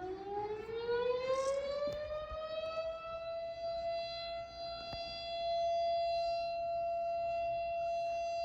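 Civil defense siren sounding as an Emergency Alert System alarm: it winds up, rising in pitch for about three seconds, then holds one steady tone.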